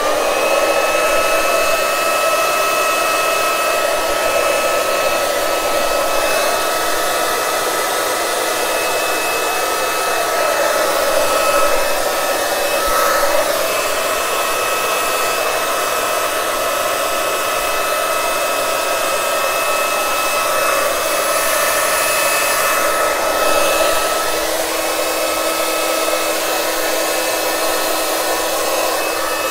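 Handleless hair dryer switched on and running steadily: a loud rush of air with a steady high whine on top, its tone shifting a little now and then.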